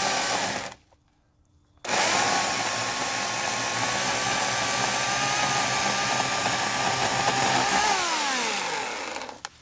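Portland 14-inch electric chainsaw's 9-amp motor: a short burst, a pause of about a second, then about six seconds of steady running while cutting through thin stems. Near the end it winds down in pitch as the trigger is released.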